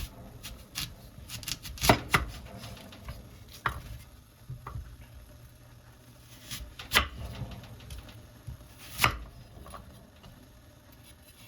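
A kitchen knife cutting up an apple pear on a cutting board: irregular knocks of the blade against the board, with a few louder chops spread through.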